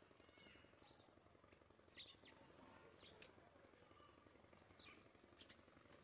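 House sparrows chirping faintly at a seed feeder: a scattered series of short, quick chirps over a low steady background noise.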